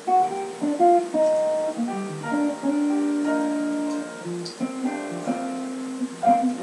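Background music: a slow melody of single notes picked on an acoustic guitar.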